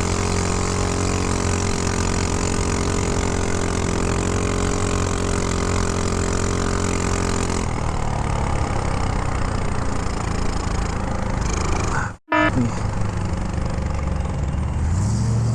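Honda Ruckus scooter engine running steadily at idle, then turning rougher and less even. After a brief break about twelve seconds in, the engine is heard again, its pitch stepping up near the end.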